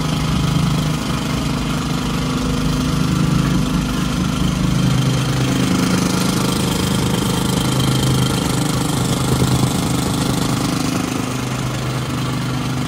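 A tamping rammer (jumping-jack compactor) running at a steady speed. Its small engine drives the spring-loaded foot in rapid, continuous pounding on damp sandy soil.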